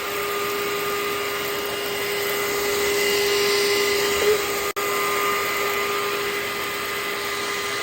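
Craftsman V20 cordless stick vacuum running steadily on medium speed with its brush roll off: a steady motor whine over the hiss of suction air. There is a split-second break about two-thirds in.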